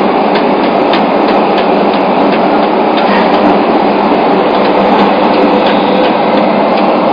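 JR Kyushu 305 series electric train running at speed through a subway tunnel, heard from inside the car: a steady, loud roar of wheels on rail with faint, irregular clicks.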